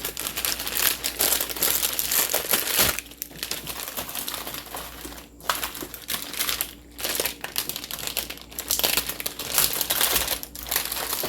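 Crinkly plastic food packaging crackling and rustling as it is handled, in bursts with a few short pauses.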